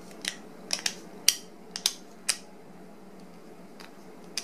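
Plastic clicks from the 3D-printed Cube 3 extruder hub's chip switcher as it is pushed down and twisted between chip positions: about eight sharp clicks in the first two and a half seconds, then one more near the end.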